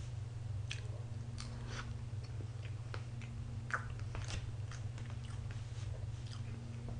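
A person chewing soft fresh-cream cake close to the microphone: scattered wet mouth clicks and smacks, one sharper click a little past halfway. A steady low hum runs underneath.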